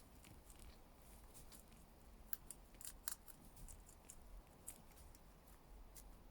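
Rabbit chewing salad leaves: a run of faint, crisp, irregular crunching clicks, thickest a little past two seconds in and around three seconds.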